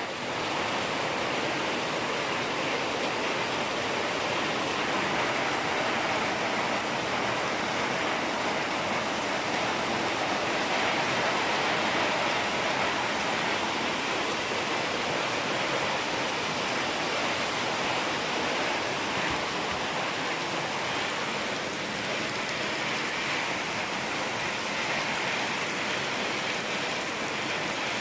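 Heavy rain pouring steadily, a continuous even hiss of downpour with no let-up.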